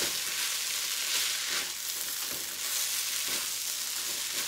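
Shrimp fried rice sizzling in a hot metal wok, stirred and tossed with a silicone spatula in repeated strokes, each stroke a brief swell in the steady sizzle.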